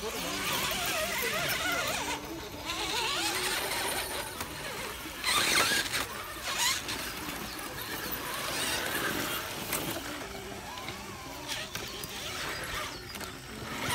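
Electric motors and drivetrains of RC rock crawlers whining, the pitch wavering up and down with the throttle as they climb over rock, with a short louder scraping burst about five and a half seconds in.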